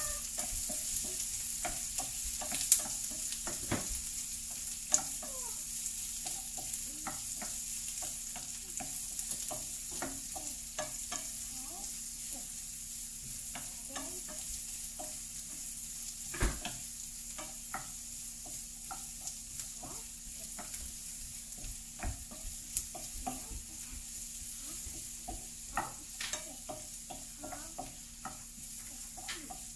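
Sliced onions and garlic sizzling in hot oil in a frying pan while being stirred with a wooden spoon: a steady hiss with frequent scrapes and taps of the spoon on the pan, and a few sharper knocks. The sizzle eases off gradually.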